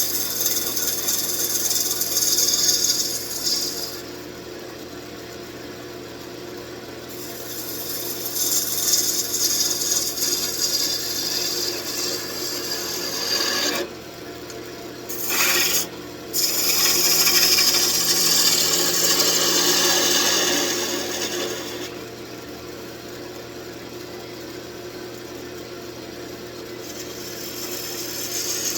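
Wood lathe running, with a turning tool cutting into the spinning wood in several passes: a scraping hiss that comes and goes over the steady hum of the lathe.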